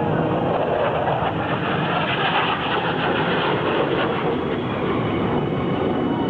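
Loud, steady jet engine noise from F-16 fighter jets flying the display.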